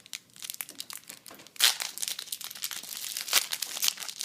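Foil wrapper of a Yu-Gi-Oh booster pack crinkling as it is handled and opened, a dense run of crackles with two louder crackles, one before the middle and one near the end.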